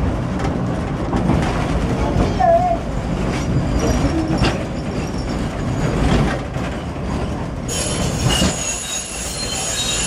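Funicular car running up its rails with a steady rumble; about eight seconds in, its wheels start to squeal high on the track.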